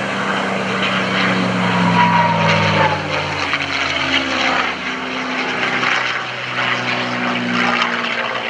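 North American P-51D Mustang's Packard Merlin V-12 engine and propeller running at power as the fighter flies past overhead. The engine's pitch drops about two to three seconds in as it goes by.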